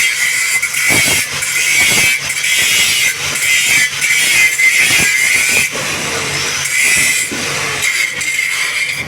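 Welding arc hissing and crackling steadily over a low hum during a root pass on a joint. It cuts off near the end, as the arc is broken.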